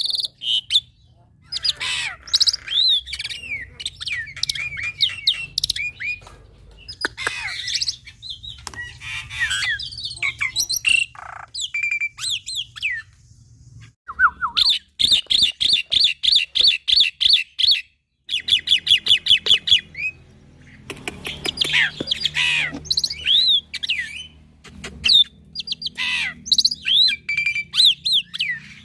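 Young black-winged myna (jalak putih) singing a varied song of whistles, chirps and harsh squawks, with a fast run of repeated notes in the middle, broken by a few short pauses.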